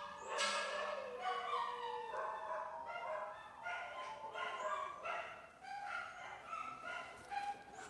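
Baby monkey crying: a run of high, wavering squeals and whimpers that grows quieter over the last few seconds.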